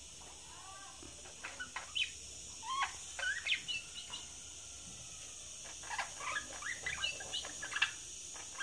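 Budgerigars chattering: quick, irregular chirps and short warbling calls, with a burst about three seconds in and a busier run in the last few seconds, over a faint steady high hiss.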